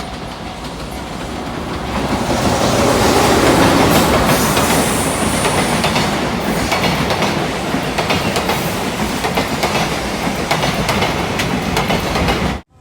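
Freight train passing close by, its wagon wheels clattering over rail joints in a rapid run of clicks. It grows louder about 2 seconds in and cuts off suddenly near the end.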